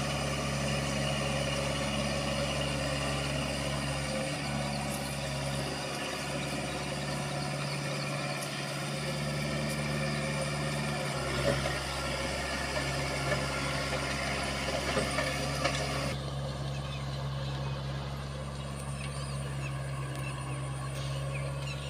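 Tractor engine running at a steady pace while plowing a flooded paddy field, a low, even hum.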